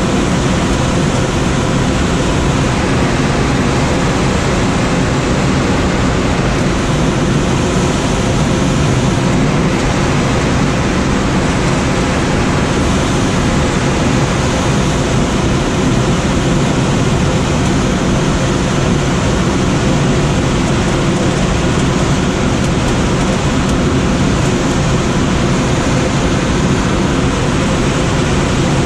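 Steady rush of air streaming past the cockpit of a Schweizer SGS 2-32 glider in flight, loud and unchanging throughout.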